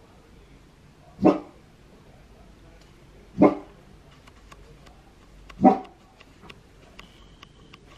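German Shepherd barking three times, single barks about two seconds apart.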